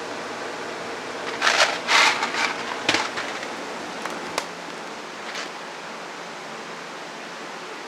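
Steady room hiss, with a few short rustling noises between about one and a half and three seconds in and a couple of faint clicks after.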